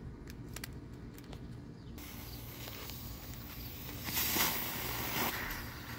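A small tank-shaped novelty ground firework: its fuse catches about two seconds in and hisses steadily, then about four seconds in the firework spews with a louder rushing hiss for just over a second.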